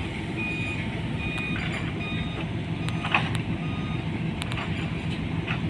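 Diesel engine of a crawler pile-driving rig running steadily, with short high beeps of a machine warning alarm now and then and a few light clicks.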